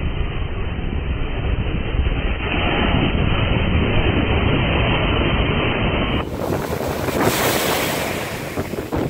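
Nor'easter storm surf breaking over shoreline rocks at high tide: a steady, muffled roar of water with wind buffeting the microphone. About six seconds in it switches abruptly to a brighter, hissing rush of water surging over the rocks.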